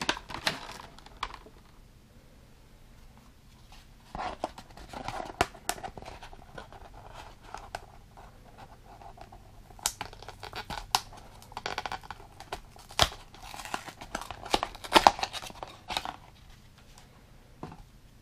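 Hands handling a clear plastic blister tray and a cardboard toy box: crinkling and scraping with scattered sharp clicks, after a lull of a couple of seconds near the start.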